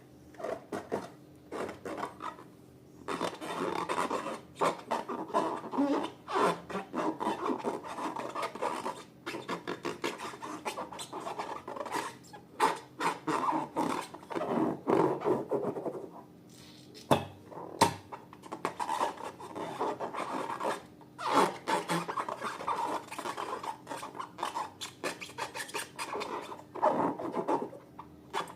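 Slime and balloons being handled: uneven rubbing and scraping broken by many short clicks and crackles, with brief pauses now and then.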